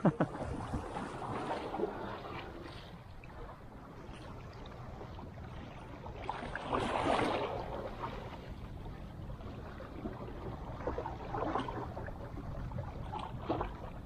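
Small sea waves lapping and sloshing against the boulders of a rock breakwater, with one louder surge about halfway.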